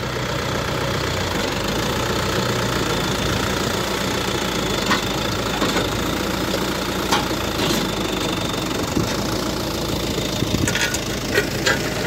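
Massey Ferguson 3085 D diesel tractor engine running steadily at close range, with a few sharp clicks in the second half.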